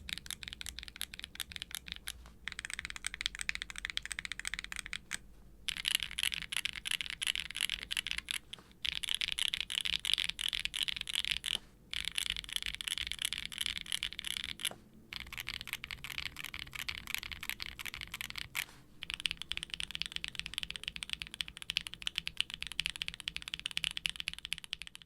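Continuous typing on a Qwertykeys Neo65 aluminium mechanical keyboard with factory-lubed, all-POM Gateron Green Tea Pro tactile switches, a carbon fibre plate, no dampening foam and GMK ABS keycaps. It makes a dense run of quiet clacks, broken by short pauses every few seconds.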